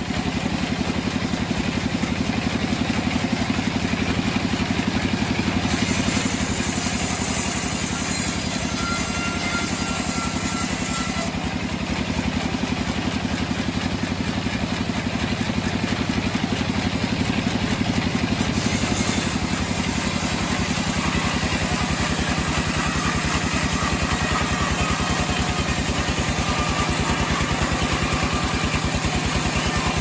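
Homemade band sawmill running steadily, its motor droning while the band-saw blade cuts lengthwise through a mahogany beam.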